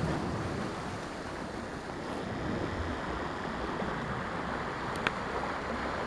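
Steady wash of ocean surf and wind, with one faint click about five seconds in.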